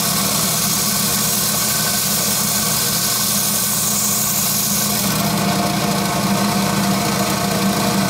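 Electric coral-fragging saw running steadily, cutting through the stony skeleton of a hammer coral colony to split off heads. It gives a constant motor hum under a high grinding hiss that eases a little about five seconds in.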